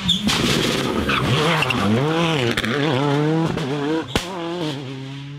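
Skoda Fabia WRC rally car's turbocharged four-cylinder engine revving hard through a hairpin, its pitch rising and falling with the throttle and gear changes. A sharp bang comes about four seconds in.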